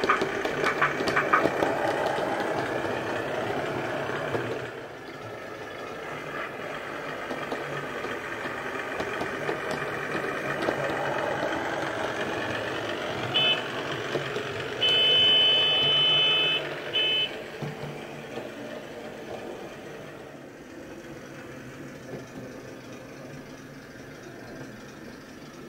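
Simulated diesel engine sound from the DCC sound decoder and small speaker of a Hornby Ruston 48DS model shunter, running steadily, with rail-joint clanks in the first second or two. A high horn sounds briefly, then for about two seconds, then briefly again, and the engine sound fades near the end as the model runs away.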